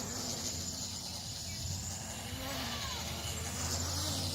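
Bugs 3 quadcopter's brushless motors and propellers whirring steadily in flight, while the quad sags with no power, a fault the owner cannot explain.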